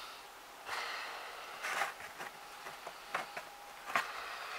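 Handling noise on a workbench: two short hissing bursts, then light clicks and taps as small tools are put down and picked up, over a faint steady hiss.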